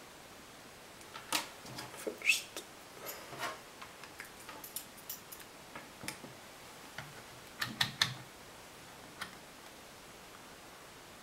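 Scattered small clicks, taps and light scrapes of test leads and probe clips being handled while a resistance measurement is set up, coming in a few clusters over the first eight seconds.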